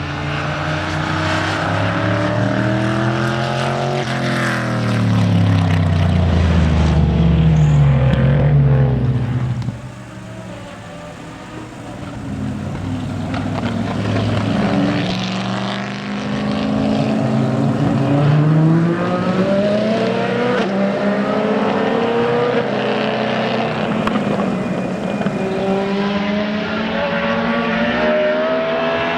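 Racing car engines on track, the pitch climbing through the revs and dropping at each gear change. The loudest car goes by about five to nine seconds in, its note falling before it cuts away suddenly near ten seconds; after that, engines carry on accelerating through the gears more faintly.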